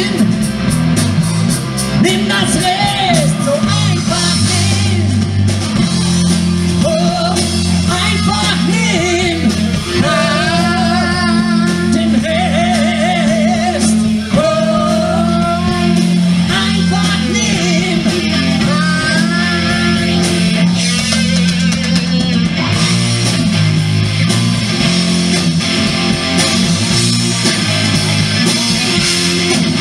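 Live rock band playing loudly: electric guitars, bass guitar and drum kit, with a vocalist singing a melody through the middle of the passage.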